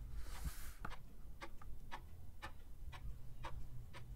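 Clock ticking steadily, about two ticks a second, over a low room hum. About half a second in, a short rustle as Copic markers are laid down on the sketchbook paper.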